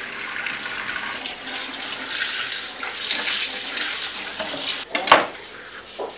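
Kitchen tap running into a stainless-steel sink as a bell pepper is rinsed under the stream, a steady rush of water. It cuts off abruptly about five seconds in, followed by a single sharp knock.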